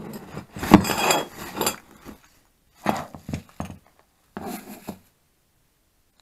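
Plastic packaging crinkling and rustling, with metal parts clinking and knocking on a wooden table as bagged brake parts are handled. It comes in three bursts, with a sharp knock about a second in, and stops about five seconds in.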